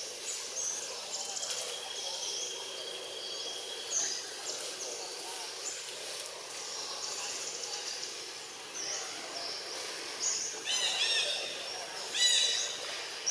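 Forest ambience full of short, high bird chirps and calls. From about ten seconds in come runs of louder, high-pitched arching calls, the loudest near the end.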